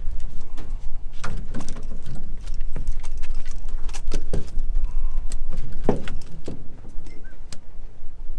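Wind buffeting the microphone as a steady low rumble, with a series of short knocks and clatters from fish gear being handled on the boat deck.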